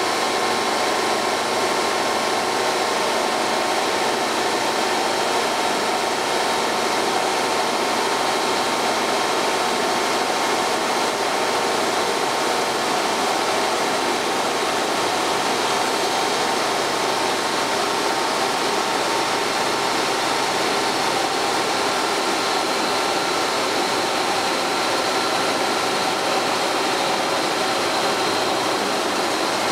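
Large water-cooled circular stone saw blade cutting through a stone block: a steady, unbroken grinding noise of blade and motor with faint steady tones in it.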